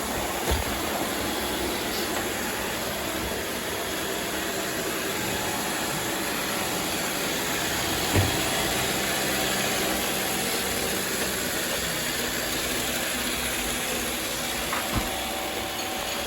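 Robot vacuum running steadily with a whirring hum, with a few light knocks: about half a second in, around eight seconds and near the end.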